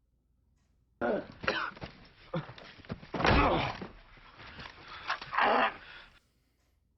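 Loud, short vocal sounds from a person, coughs or grunts rather than words, in several bursts with pauses.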